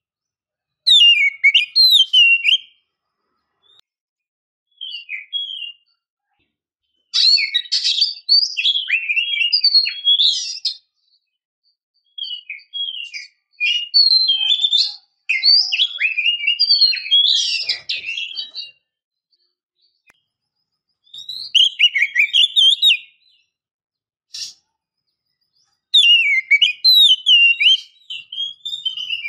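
Oriental magpie-robin singing: loud bouts of rapid whistled chirps, slurs and trills, broken by pauses of a second or two.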